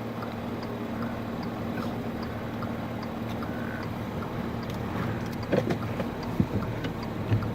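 Steady rumbling wind noise under a low, steady engine-like hum, with a few faint knocks in the second half.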